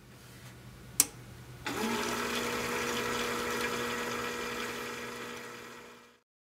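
A sharp click about a second in, then the Perten CT 1000 cooling tower starts up: its pump runs with a steady two-note hum over a broad hiss as the cooling water begins to circulate. The sound fades and cuts off near the end.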